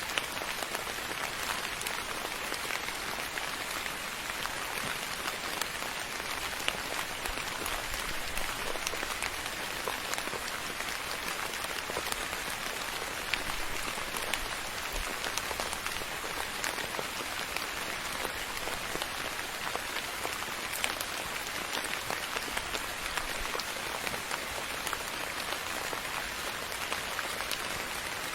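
Steady rain falling, with many fine drops pattering on a surface.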